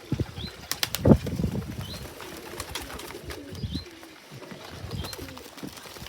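Racing pigeons cooing around a loft, with a few sharp clicks and a louder knock about a second in. Short high chirps of small birds are heard now and then.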